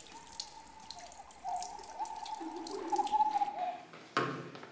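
Water dripping and trickling at a faucet over a wet stone counter, with a thin whistling tone that shifts pitch a few times. A short knock sounds near the end.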